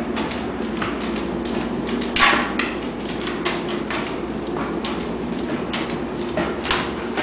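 A dog's claws clicking and paws tapping on stair treads as it climbs, several irregular taps a second, with a louder scuff about two seconds in. A steady low hum runs underneath.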